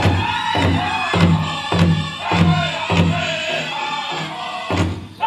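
Powwow drum group singing in chorus over a big drum beaten steadily, about two beats a second, with a brief dip in the drumming near the end before a hard beat.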